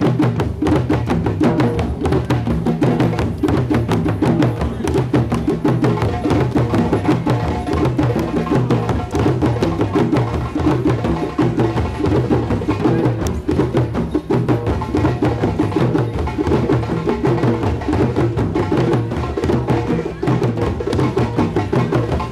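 Drum circle of djembes and other hand drums played together in a dense, steady stream of overlapping beats that never lets up.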